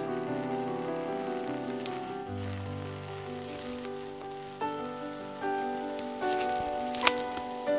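Background music with a slow melody and bass notes, over a faint sizzle of yeast batter frying in a little oil in a nonstick pan. A sharp click sounds once near the end.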